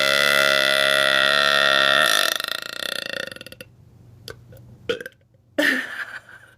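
A woman's long, loud burp on one steady, slightly wavering pitch that breaks off about two seconds in and trails away in a rattle. A few faint clicks and a brief vocal sound follow near the end.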